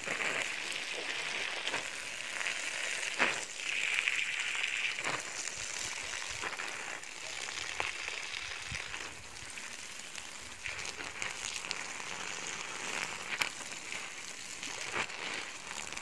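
A stream of water from a garden hose splashing onto plastic mulch sheeting and strawberry plants: a steady hiss and patter with a few sharper splats.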